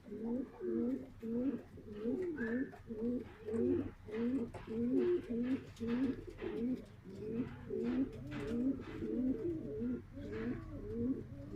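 Several pigeons cooing at once, a steady overlapping run of low rolling coos with no break.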